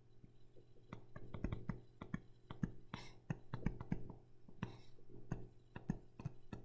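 Pen stylus tapping and scratching on a tablet surface while handwriting: a quick, irregular run of faint clicks over a low steady hum.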